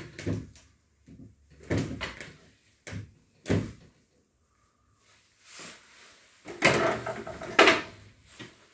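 Wooden thumps and knocks of plywood wall-cabinet doors being swung open and shut, a few scattered knocks at first, then a louder run of them near the end.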